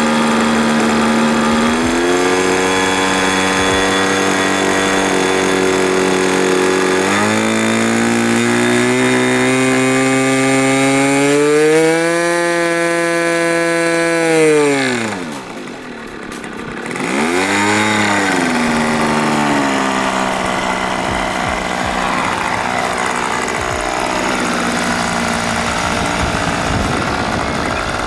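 O.S. 50SX two-stroke glow engine of a model aircraft on a ground run-up before flight. It steps up from idle twice, climbs to a high full-throttle whine about 12 seconds in, then drops sharply, rises and falls once more, and settles back to a steady idle.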